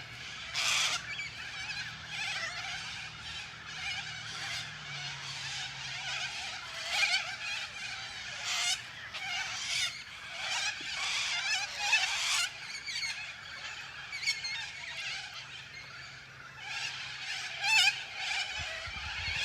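Dense natural chorus of many overlapping high chirps and trills from calling wild creatures, with no single caller standing out and a faint low hum underneath.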